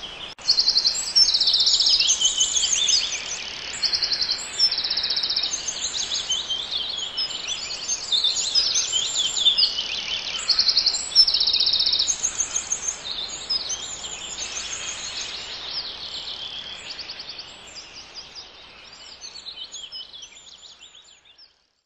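A chorus of songbirds singing: many quick trills and chirped phrases, one overlapping another, over a light background hiss, fading out near the end.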